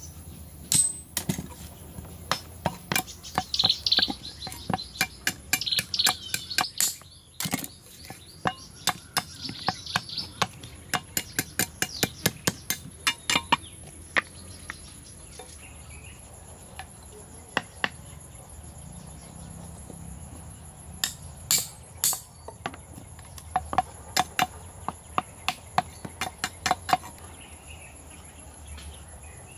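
Runs of sharp taps and knocks from hand work on wood, with rasping scrapes in the first ten seconds or so. Insects keep up a steady high-pitched drone behind them.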